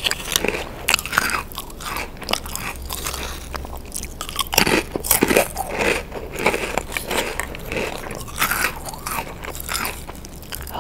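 Crunching and chewing of crisp orange potato chips close to the microphone: a dense run of sharp, crackling crunches, loudest about halfway through.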